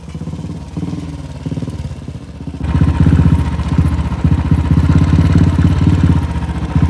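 Motorcycle engine running with a fast, even pulse, getting markedly louder about two and a half seconds in.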